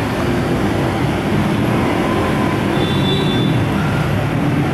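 City street traffic: vehicle engines running with a steady hum, and a brief high squeal about three seconds in.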